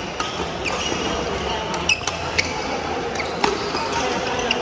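Badminton rally: rackets strike the shuttlecock with several sharp cracks, the loudest about two seconds in and again about three and a half seconds in. Shoes squeak briefly on the court floor, over a background of chatter from the hall.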